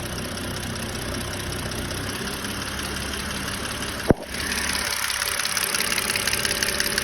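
BMW 530i engine idling with a fast, hard ticking. A sharp click about four seconds in, after which the ticking is louder and plainer.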